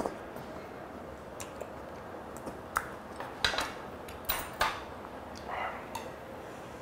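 Metal spoon and chopsticks clinking against a small metal soup bowl: five or six sharp clinks between about three and five seconds in, one more near the end, and a short breathy puff of breath between them.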